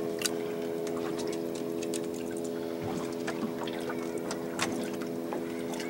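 Boat engine idling steadily, with small splashes and water lapping and ticking against the hull.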